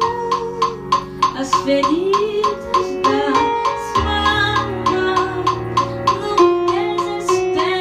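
Live song accompaniment on a Yamaha Motif XS7 synthesizer keyboard: sustained chords and melody over a steady ticking drum beat, with a low bass coming in about halfway.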